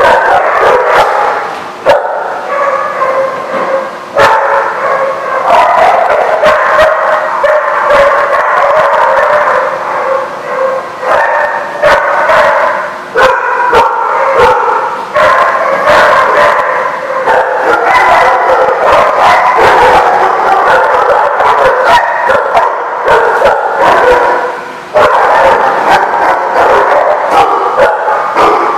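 A pack of dogs barking together, many voices overlapping into a loud, nearly unbroken din, with a brief lull about three-quarters of the way through.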